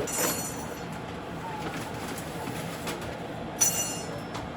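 Two sharp metallic clinks with a brief ring, one just after the start and a louder one about three and a half seconds in, like a metal utensil striking a cooking pan, over a steady rushing background noise.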